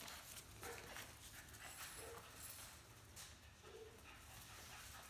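Rottweiler puppies playing on a hard floor, faint: scattered light clicks and scuffs of paws and claws, with two short soft whimpers about two and three and a half seconds in.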